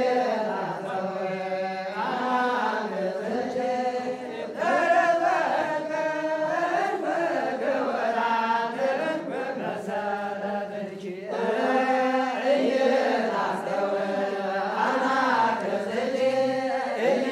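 Ethiopian Orthodox priests chanting together, a group of men's voices singing a slow liturgical chant in phrases that rise and fall every couple of seconds.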